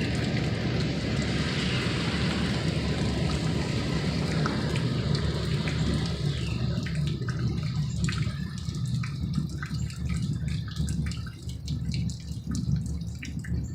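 A loud, deep rumble from the sky, of unknown source, dying down about halfway through. After it, a scatter of short ticks like water dripping.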